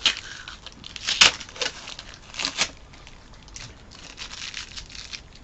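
Tape and paper packaging being torn and crinkled off cardboard poster tubes: a series of sharp ripping strokes and rustles, the loudest a little over a second in.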